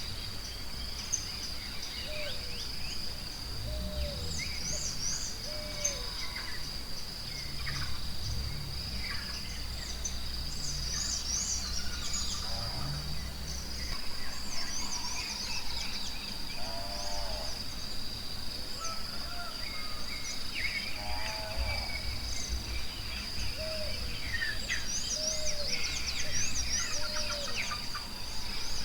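Forest ambience: a steady high insect drone, with many birds chirping and trilling over it and a few lower animal calls every few seconds.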